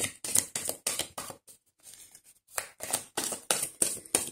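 Oracle cards being shuffled by hand: a quick run of crisp clicks and slaps of the cards, with a pause of about a second in the middle.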